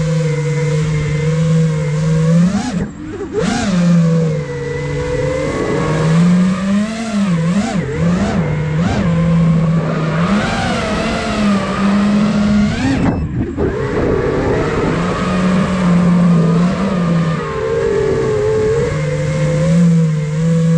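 The brushless motors and propellers of a 5-inch FPV quadcopter (iFlight Nazgul Evoque F5), recorded on board, with the whine rising and falling as the throttle changes during freestyle flying. The sound cuts out briefly about three seconds in and again about thirteen seconds in, where the throttle drops.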